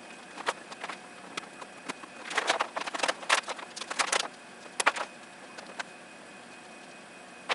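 Scattered light clicks and short bursts of clatter, like small hard objects being handled, busiest from about two to four seconds in.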